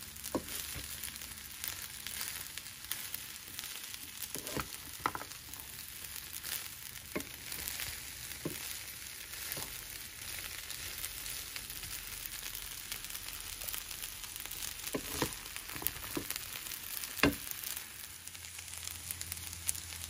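Fried rice with sausage and snow peas sizzling in a skillet as a wooden spatula stirs and turns it, with a few sharp knocks of the spatula against the pan, the loudest near the end.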